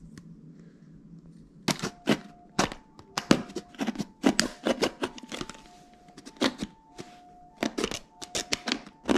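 Thin plastic drink bottle crackling and crunching as a knife cuts into it, a rapid, irregular run of sharp cracks and clicks starting about a second and a half in. A faint simple tune alternating between two notes runs underneath.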